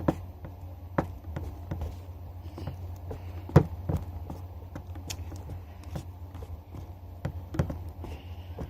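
Scattered light knocks and clicks, the loudest about three and a half seconds in, over a steady low hum.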